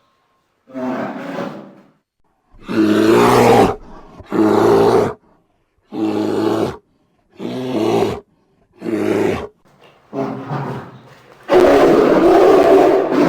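Bear roaring in a string of short separate roars, each about a second long with brief silences between, then a longer, louder roar near the end.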